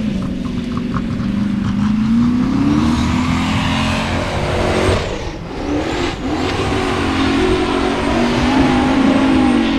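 Formula Offroad buggy's engine revving hard under full throttle as it claws up a steep dirt hill climb, its pitch rising and falling. The engine note drops away briefly about halfway through, then picks up again.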